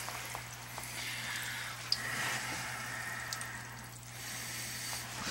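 Water and air hissing and sputtering out of a loosened hose connection at a refrigerator ice maker's water solenoid valve as the line is blown out for winterizing, the hiss strongest in the middle, over a low steady hum.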